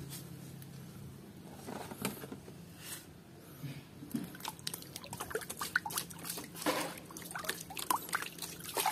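Muddy water sloshing and splashing in a plastic bucket as a hand scrubs a plastic toy figure under the surface. The splashes and drips are small, irregular and fairly quiet, getting busier from about halfway through.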